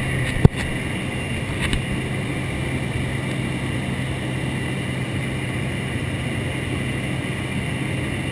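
Steady drone of a small jump plane's engine and propeller, heard from inside the cabin. A sharp knock about half a second in is the loudest event, and a fainter one follows about a second later.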